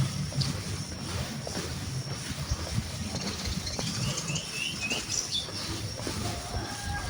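Countryside ambience: a bird gives three quick rising chirps about four seconds in, over a faint steady high whine and a low rumble.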